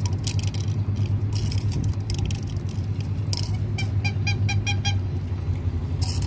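A steady low rumble with scattered crackles, and about four seconds in a quick, even run of about seven short high beeps lasting about a second.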